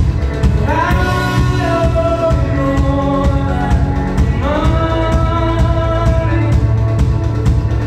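Live rock band playing: electric guitars and a steady drum-kit beat, with a lead voice singing two long held phrases, the first starting about a second in and the second about halfway through.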